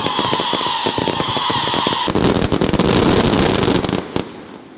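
Beehive fireworks going off in a rapid barrage of cracks, with a high whistle held over them for the first two seconds. About two seconds in, the barrage turns into a denser rushing blast, then cuts off about four seconds in.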